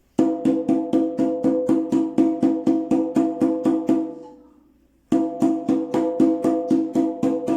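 Conga open tones (golpe libre) struck with the palm in an even sixteenth-note stream, about four to five strokes a second, each ringing with a clear pitch. The playing stops about four seconds in and starts again a second later.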